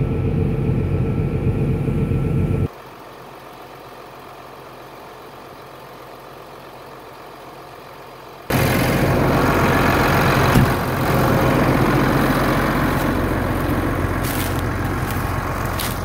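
A Gleaner combine's engine runs loudly while it unloads through its auger, and cuts off suddenly about three seconds in to a faint low hum. About six seconds later loud engine noise returns abruptly from a tractor running close by, fading slowly toward the end.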